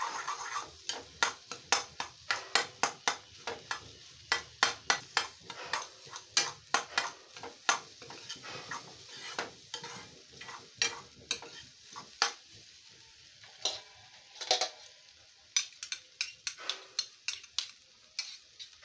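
A metal ladle scraping and clinking against a metal kadai, about two or three strokes a second, as scrambled egg is stirred and fried on medium flame. A faint sizzle of the frying egg runs underneath.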